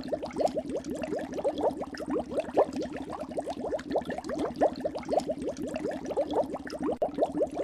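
Gas bubbles rising through water: a continuous stream of bubbly blips, about ten a second, each a quick upward glide in pitch.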